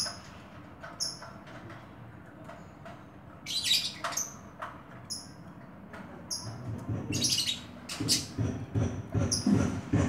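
A caged oriental magpie-robin gives short, high chirps every second or so. Twice, at about three and a half seconds and seven seconds, a louder rushing noise cuts in. From about eight seconds in comes a run of quick low thumps.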